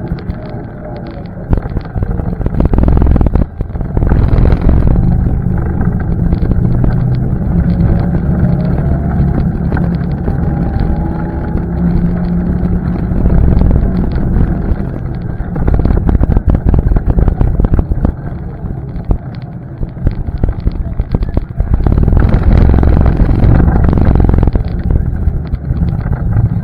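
ATV engine running with the throttle changing, its pitch rising and falling as it speeds up and eases off. It gets louder in surges about three seconds in and again around twenty-two seconds.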